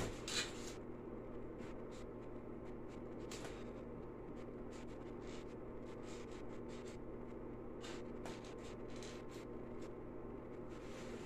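Faint scratches and light clicks from hands setting pinned specimens into a glass display case, over a steady low hum.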